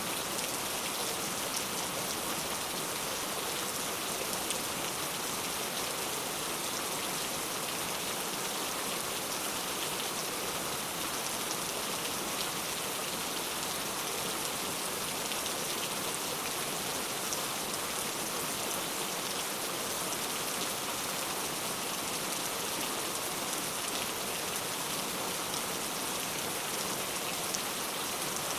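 Heavy rain falling steadily, an even hiss with many small drop ticks.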